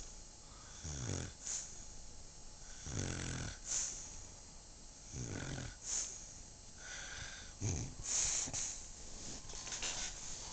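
A woman snoring in her sleep. Four low snores come about two and a half seconds apart, each followed by a short hiss.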